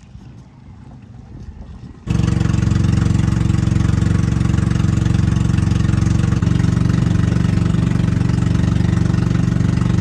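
An engine running loud and steady at a constant speed, cutting in abruptly about two seconds in after a few seconds of quiet background.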